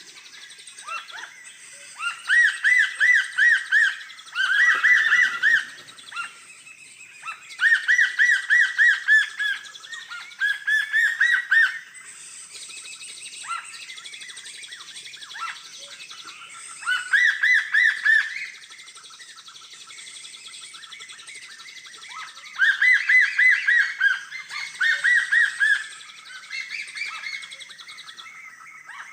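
Bird call: a loud phrase of quick, evenly repeated chirps, each phrase lasting a second or two and coming about seven times with pauses between.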